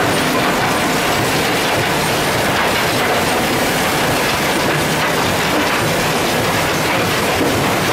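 Alluvial cassiterite sand separating plant running: steady, dense mechanical din from the vibrating feeders and processing machinery, with no pause or change.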